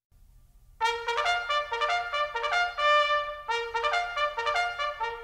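Background music: a trumpet melody that comes in about a second in, quick changing notes, running into a long held note near the end.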